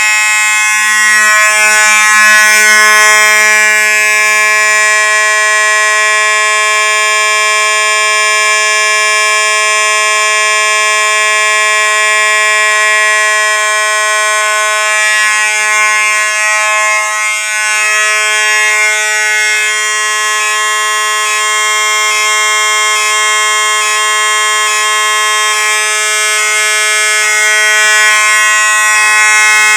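Simplex fire alarm horn sounding a steady, continuous buzzing tone.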